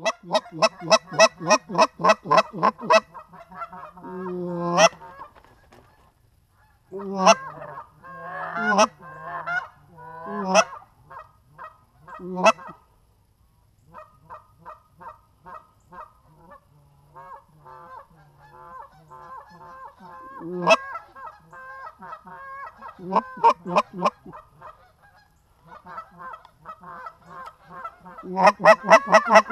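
Geese honking and clucking in fast bursts of several notes a second, some notes breaking from low to high, with short pauses between bursts. Loudest at the start and again near the end, quieter in the middle.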